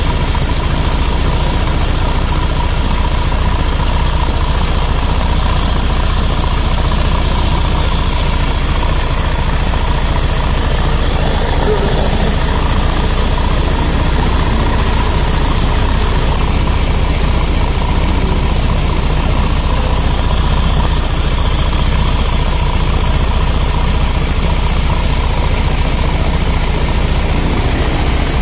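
Motorcycle engine idling steadily with its valve cover removed, the exposed rocker arms and valves working in the open cylinder head.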